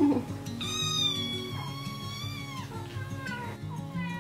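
Kitten meowing: one long meow of about two seconds that falls in pitch at its end, then a couple of short meows near the end, over background music.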